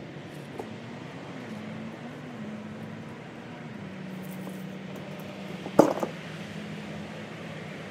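A steady low mechanical hum with a slightly wavering tone, broken by one sharp knock about six seconds in.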